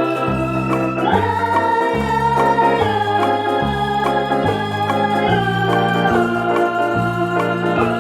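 Background music: an instrumental with held chords over a bass line that steps to a new note about every second.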